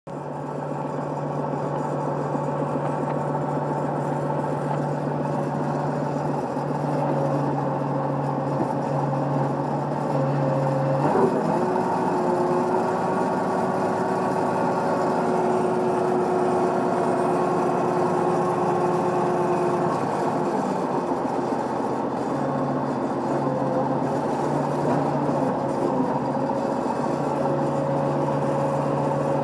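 Old track loader's engine running steadily. About eleven seconds in its note changes and a steady whine joins it for about ten seconds, then it settles back to the earlier note.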